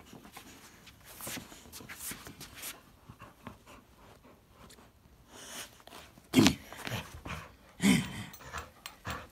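A puppy tugging on a jute tug pillow, breathing hard and panting with its jaws on the pad, with two short, louder sounds a little past halfway.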